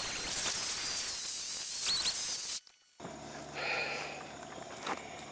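Outdoor background of a steady high hiss with a few short chirping whistles, which cuts off about two and a half seconds in. Quieter background follows, with a faint warbling sound and a single click near the end.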